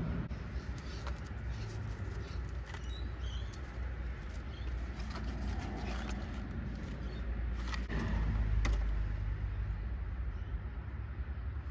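Scattered light clicks and scrapes of hard plastic parts being handled, typical of working a tail-light housing and bulb socket, over a steady low rumble.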